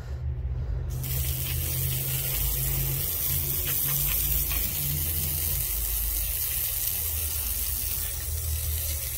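An engine running steadily at a low pitch, with a steady hiss that starts suddenly about a second in.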